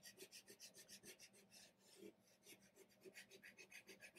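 Chalk pastel scratching across paper in quick, short back-and-forth strokes, about six a second, faint.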